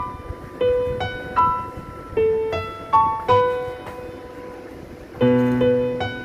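Background music: a slow piano melody of single struck notes that ring and fade, with a fuller low chord about five seconds in.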